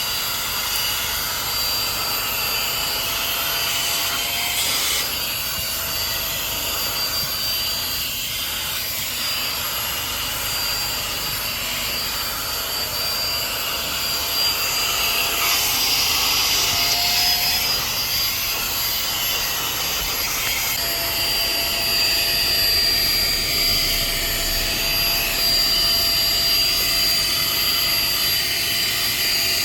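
Mini handheld car vacuum cleaner running steadily: a high whine from its small fast motor over a rush of air.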